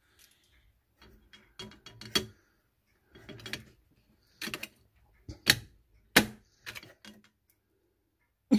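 Metal clicking and tapping as a steel heart-shaped cookie cutter and a flat metal press are handled and pressed onto dalgona candy on a stainless steel tray: a string of irregular sharp clicks and taps.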